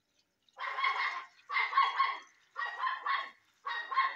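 A dog barking repeatedly, in four short runs of barks about a second apart.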